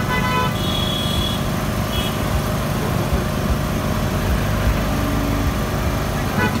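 Street traffic: a steady rumble of passing vehicles, with short horn toots near the start and again near the end.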